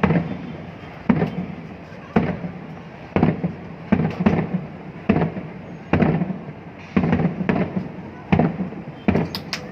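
Aerial fireworks shells bursting in a steady barrage, a boom about every second, each trailing off in an echo. Near the end comes a quick run of sharper cracks.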